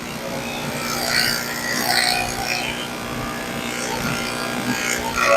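Electric pet grooming clippers running with a steady motor hum, with uneven scratchy noise over it as the clippers shave a cat's coat.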